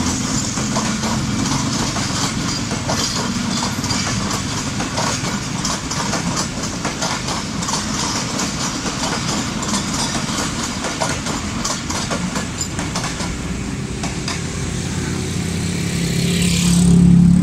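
Passenger coaches of an express train rolling past on the rails, their wheels clicking and clattering over the rail joints, thinning out as the last coaches go by. Near the end, a low steady drone swells louder.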